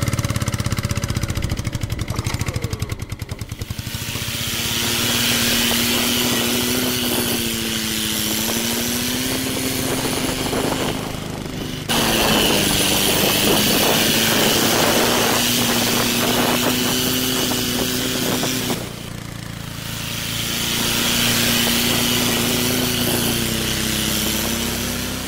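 Small electric gear motor of a homemade toy tractor running, a steady whine with gear noise whose pitch dips and rises a little as the load changes.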